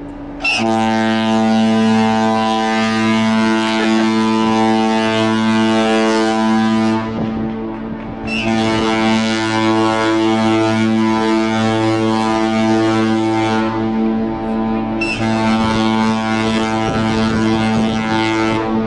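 Ship's horn sounding a long, deep, steady tone. A hissing edge on top cuts out twice, about 7 and 14 seconds in, and comes back each time.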